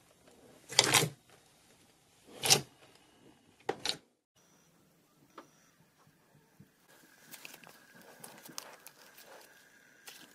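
Hands squeezing and pulling thick slime: three loud wet squelches in the first four seconds, then quieter sticky crackling as a second slime is pressed, stretched and folded.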